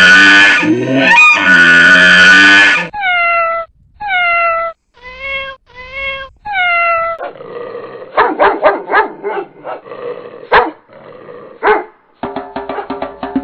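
A series of animal calls: two long, loud pitched calls, then five short yelps that fall in pitch, then rougher, noisier calls with sharp clicks. Music with a wood-block beat comes in near the end.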